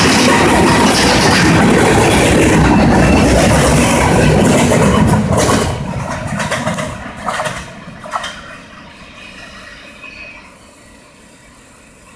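Freight cars rolling past at close range: a steady loud rumble of wheels on rail for about five seconds. Then the end of the train goes by, a few last wheel clacks sound, and the noise fades as the train moves away.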